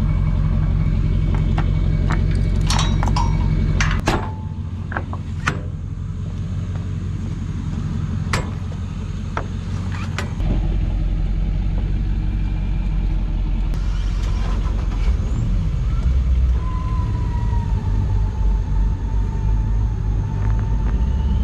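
Engine running steadily, with a series of sharp clicks and knocks during a boat launch from a trailer. The engine drops out about four seconds in and comes back about ten seconds in, and a steady whine joins it later.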